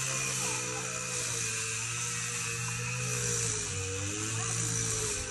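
Background music of sustained, slowly shifting notes over a low steady tone.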